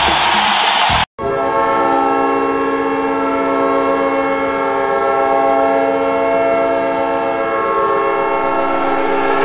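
Hockey goal horn blowing one long, steady blast, a chord of several tones sounding together. It starts about a second in, right after a brief cutoff of music and crowd noise.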